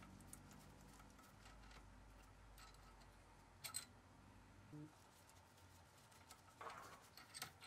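Near silence, with a few faint metallic clicks and ticks from a socket on an extension as cylinder head bolts on a Kawasaki ZX7R engine are spun out by hand. A faint low hum fades out about halfway through.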